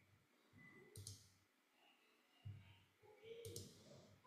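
Near silence with two faint clicks of a computer mouse, about a second in and again about three and a half seconds in, as a colour is picked in the charting software.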